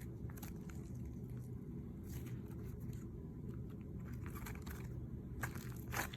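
Hands squishing and stretching homemade glitter slime, giving small sticky clicks and crackles that come more thickly near the end, over a steady low hum.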